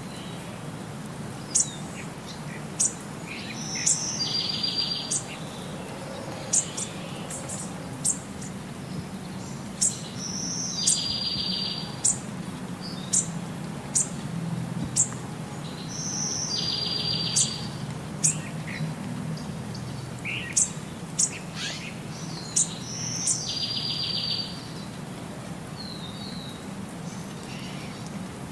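Birds calling: short sharp high chirps about once a second, with a buzzy trilled call repeating every six seconds or so, over a low steady background noise.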